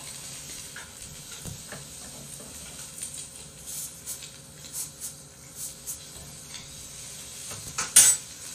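Metal tongs and kitchen scissors clicking and scraping against the grill plate and the pork belly as it is handled and cut, over a faint sizzle. One louder clack comes near the end.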